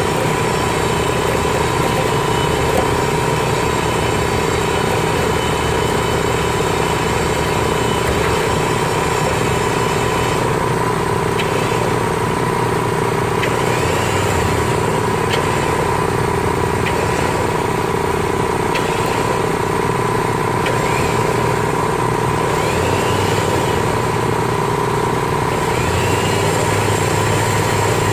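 Engine of a pile-driving rig running steadily, with a recurring change in its sound every couple of seconds from about ten seconds in.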